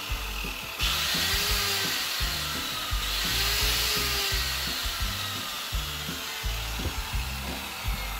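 Makita 9005B angle grinder running on a test after repair, with a steady high motor whine and fan hiss. It gets louder about a second in and again about three seconds in. It sounds pretty good: the reassembled motor and regreased gearbox are running smoothly.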